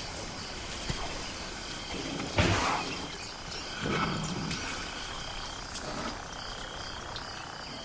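Elephants at a mineral lick: a short, breathy trunk blow about two and a half seconds in, then a low rumbling call about a second later. Steady high insect calls run underneath.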